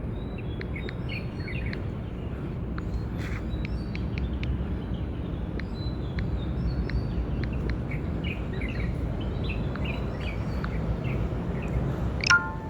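Steady low outdoor rumble with faint, short high chirps scattered throughout, and one sharper, louder chirp near the end.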